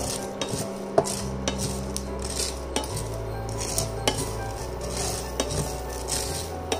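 A spatula stirs black peppercorns, sesame seeds and garlic cloves as they dry-roast in a non-stick frying pan. The seeds rattle and scrape across the pan, with a sharp knock of the spatula on the pan every second or so, and the seeds crackle as they roast.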